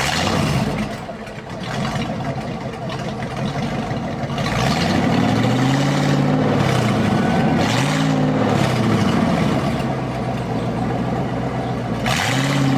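Turbocharged Mazda Miata's four-cylinder engine running just after being started, revved up and let back down to idle three times.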